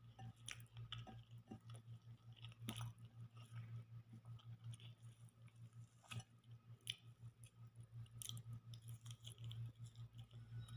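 Faint eating sounds: fingers working food in a glass bowl and chewing, with scattered sharp clicks, over a steady low hum.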